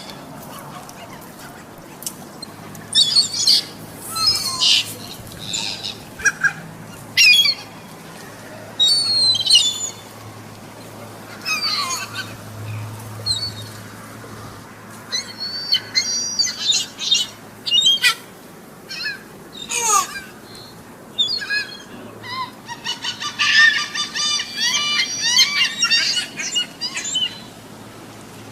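A flock of seagulls calling: short, high cries that drop in pitch, scattered at first, then crowding together into a dense chorus a few seconds before the end.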